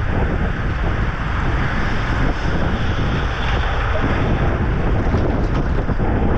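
Steady wind rushing over the microphone of a bicycle-mounted camera while riding, with a low buffeting rumble.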